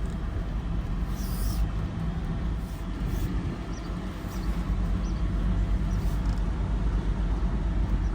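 2012 Dodge Ram 1500's Hemi V8 and road noise heard from inside the cab while driving: a steady low rumble that grows a little louder about halfway through.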